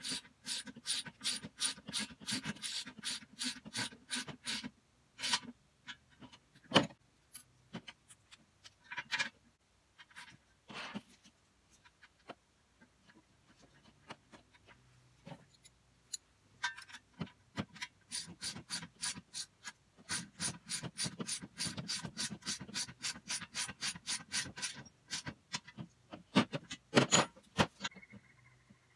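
Quick runs of metallic ratchet clicks, about five a second, in two long spells, with a few louder single knocks of metal parts between and after them, as a hang-on tree stand is fastened together.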